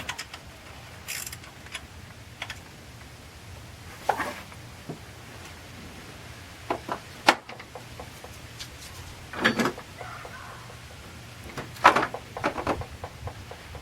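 Hand tools and sockets clinking and knocking against metal in separate strikes and short runs of clicks, the loudest bursts about four, nine and a half and twelve seconds in.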